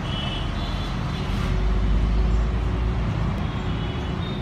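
Outdoor street traffic noise, a continuous rumble that swells about a second and a half in and eases off again a couple of seconds later, with faint short high chirps.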